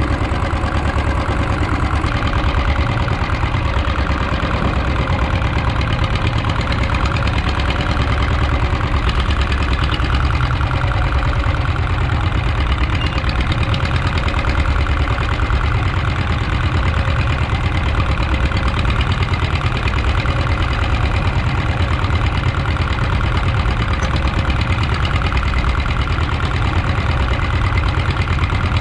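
Fishing boat's inboard engine running steadily at low revs, a constant low chugging.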